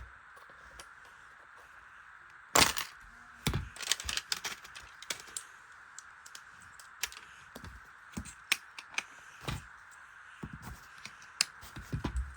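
Plastic LEGO bricks being handled and pressed together: a string of irregular sharp clicks and light knocks, the loudest about two and a half seconds in.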